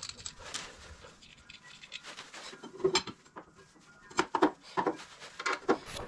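Motorcycle front brake caliper being slid back over its brake disc by hand: light metal clicks, taps and rubbing, with a cluster of sharper clicks in the second half.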